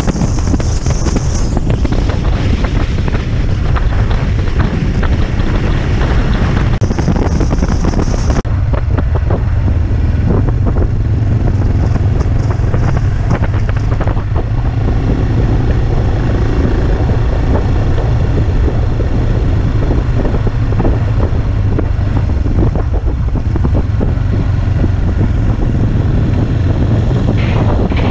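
Wind buffeting the microphone over the steady drone of an AJP PR7 single-cylinder motorcycle cruising along a road, with tyre and road noise. The wind hiss grows stronger briefly at the start and again about seven seconds in.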